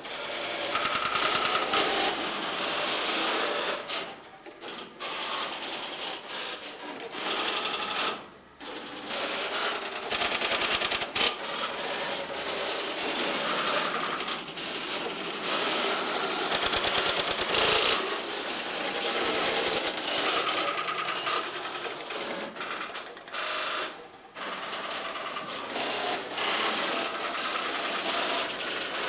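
Tesla P51 crossbar telephone exchange at work: a dense, continuous clatter of relays and crossbar switches clicking and chattering, with brief lulls now and then.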